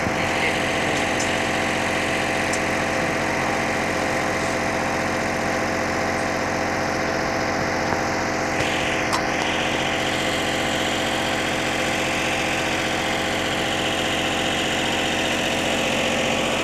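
Engine-driven welding generator running steadily at an even pitch, under a constant hiss, with a brief louder hiss about nine seconds in.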